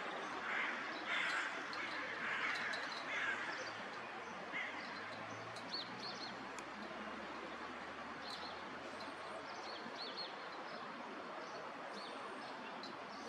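Park ambience: steady background noise with several harsh bird calls in the first three seconds or so, then short, faint chirps of small birds.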